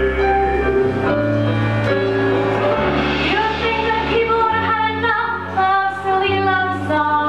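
A woman singing a love-song duet number live over instrumental accompaniment, with held bass notes that change every second or two beneath her melody.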